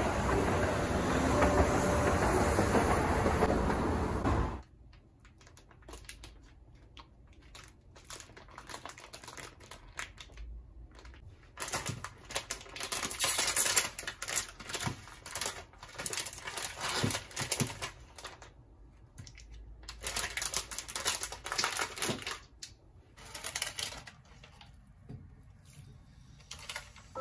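Background music for about the first four seconds, then it cuts off. After that, plastic packaging and foil sachets of a packet of chilled ramen noodles crinkle and rustle close up in several irregular bursts.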